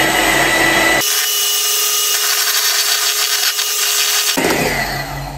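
Electric hand mixer running steadily at speed, its beaters whisking eggs and sugar in a glass bowl for a sponge batter.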